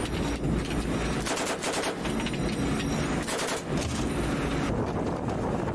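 Pedestal-mounted belt-fed machine gun firing short bursts of automatic fire from a patrol boat, the bursts following one another with brief gaps.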